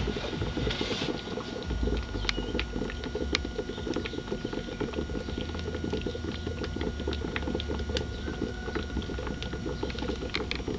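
Hydroxy (HHO) gas from a homemade electrolysis generator running at about 15 amps, bubbling through water: a fast, steady patter of small bubbles with scattered sharper pops over a low hum.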